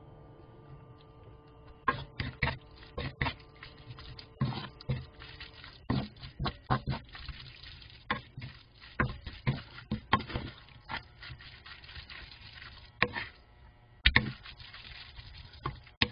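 Wooden spatula scraping and knocking irregularly against a nonstick frying pan while noodles are stir-fried in sauce, starting about two seconds in and loudest near the end.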